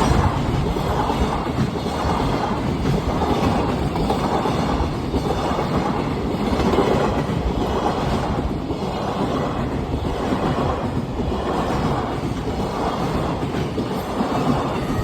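Train passing over a railway level crossing, a steady rumble of wheels on rail with a clatter that swells about once a second as the cars roll by.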